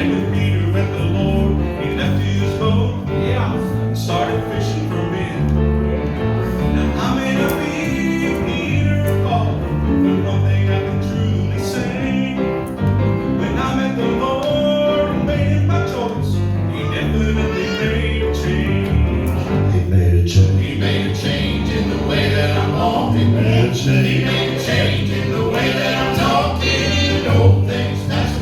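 Gospel music: voices singing over instrumental accompaniment with a steady, prominent bass line.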